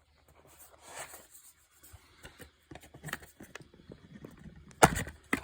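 A metal steelbook disc case being handled: light rustling and small taps, then two sharp clicks about five seconds in as the case is opened.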